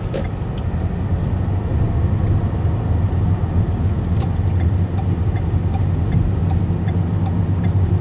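Car interior while driving: a steady low rumble of engine and road noise.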